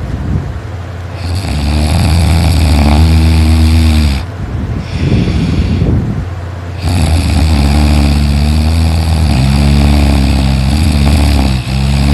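A person snoring very loudly: long, low, drawn-out snores, with a quieter stretch in the middle and a short break near the end.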